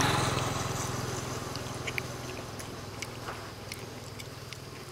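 A motor vehicle passing on the road, its engine fading away over the first couple of seconds, then faint scattered clicks and ticks.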